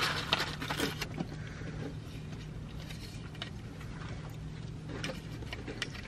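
Paper takeout bag and food wrappers rustling and crinkling, loudest in the first second, then scattered small ticks and taps of packaging being handled. A steady low hum from the car runs underneath.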